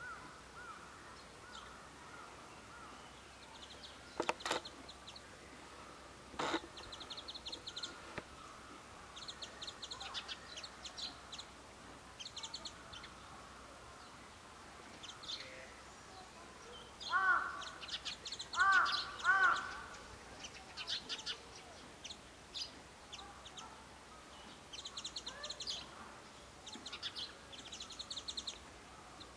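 Crows cawing, a run of loud caws about two-thirds of the way through, with small birds chirping in quick high trills throughout. Two sharp knocks sound about four and six seconds in.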